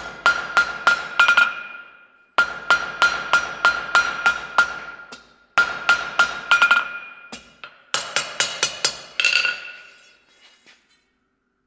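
Hammer blows on a chisel cutting grooves into a domed steel piece, about three or four a second in runs of several strikes with short pauses between them. Each blow rings out with a clear metallic tone. The hammering stops about ten seconds in.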